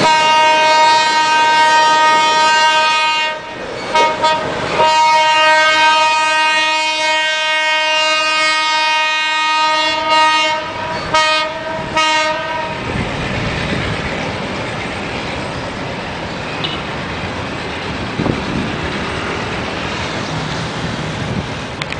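A diesel locomotive's air horn sounds a long chord in several long blasts with short gaps, then a few shorter blasts, stopping a little past halfway. After it, the passing train rumbles on steadily as it moves away.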